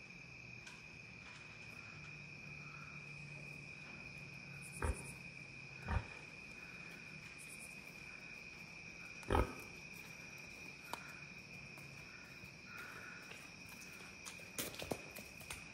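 Crickets trilling steadily in a continuous high chorus, with a few soft knocks about five, six and nine seconds in.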